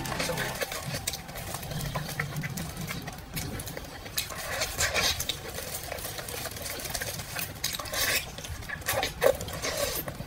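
Close-miked eating sounds: wet chewing, smacking and sucking on gelatinous braised pork skin, with irregular sticky clicks.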